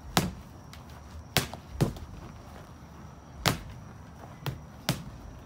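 Boxing gloves punching a freestanding heavy bag: six sharp thuds at an uneven pace, two of them in quick succession.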